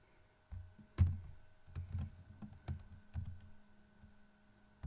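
Computer keyboard keystrokes: a quick, irregular run of key presses and clacks, the loudest about a second in, dying away after about three and a half seconds.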